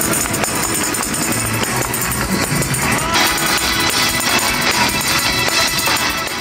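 Live gospel praise music from a large congregation, with tambourine shaking and some singing. It cuts off abruptly at the very end.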